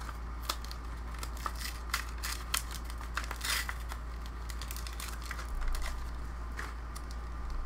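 Foil wrapper of a Yu-Gi-Oh! booster pack crinkling as it is handled and torn open by hand, in short scattered crackles with a longer one about three and a half seconds in.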